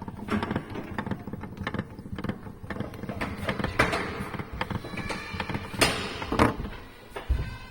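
Wooden toy clattering: a run of small wooden clicks and knocks, with a few louder knocks near the middle and toward the end.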